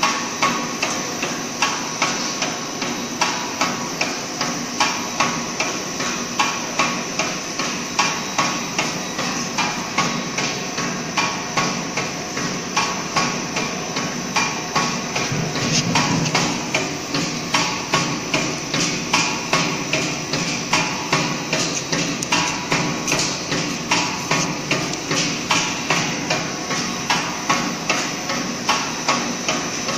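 Wavy-chip pellet cutting machine running, its rotary cutter knocking in a steady rhythm at about two strokes a second over a continuous motor hum.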